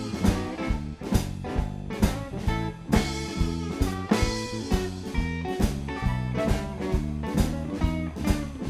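Live blues band playing: electric guitar over a drum kit, with a steady beat accented about once a second.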